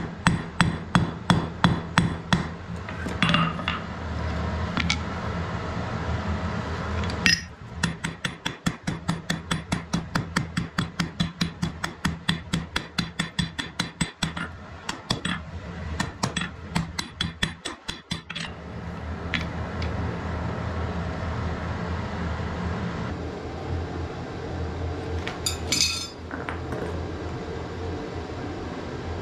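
Hand hammer striking a red-hot iron bar on a steel anvil: two runs of fast, even blows about three a second, the longer lasting roughly ten seconds. Between and after the runs a steady low hum carries on.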